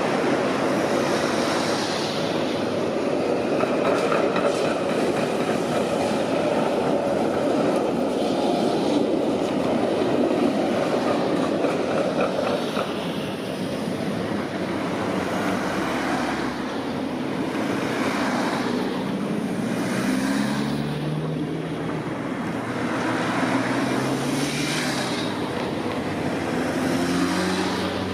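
Bucharest V3A-93 articulated tram running on its rails, with a steady rumble of wheels on track. In the second half a whine rises in pitch several times.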